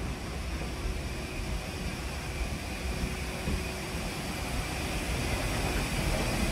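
Steady aircraft machinery hum at a parked airliner's door: a low rumble with a thin, steady high whine, growing a little louder near the end.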